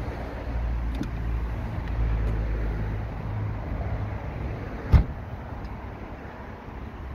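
The tailgate of a BMW 4 Series Gran Coupe is swung shut and closes with a single sharp thump about five seconds in. A low wind rumble on the microphone runs under it.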